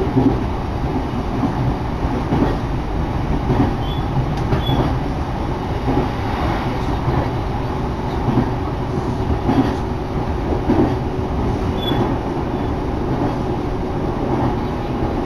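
Electric commuter train running at speed, heard from inside the carriage: a steady rumble of wheels on rails with occasional knocks.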